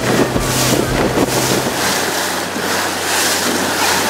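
Rigid inflatable boat under way: its engine running steadily, with water rushing and splashing along the hull and wind buffeting the microphone. About two seconds in the deep rumble drops away and the engine note settles lower, as the boat eases off.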